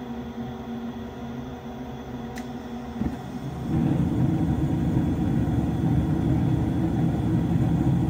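Gas furnace on its ignition sequence. The draft inducer motor runs with a steady hum, and a faint click comes about two and a half seconds in. The burners then light about three seconds in, and the furnace runs noticeably louder with a steady low rumble as gas flows to the burners.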